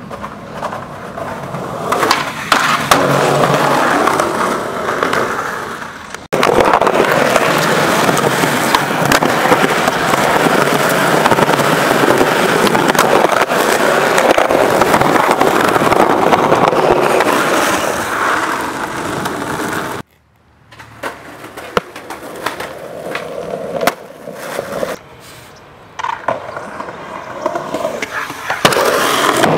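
Skateboard wheels rolling over concrete and asphalt in a steady rough rumble, with sharp clacks of the board popping and landing. The sound changes abruptly a couple of times, about six seconds in and about two-thirds of the way through.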